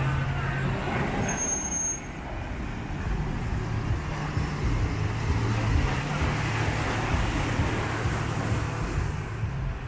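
Road traffic: a steady low engine rumble from vehicles running and passing.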